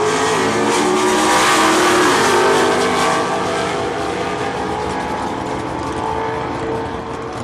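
Two Super Stock drag cars at full throttle down the quarter mile. Their engines are loudest as they pass about two seconds in, the pitch dropping as they go by. The sound then fades as they run away down the track.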